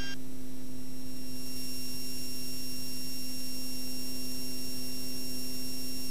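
Steady in-flight drone of a Beechcraft King Air B100's turboprop engines heard in the cockpit, a constant hum with a thin high whine over it and a hiss that grows slightly about a second and a half in.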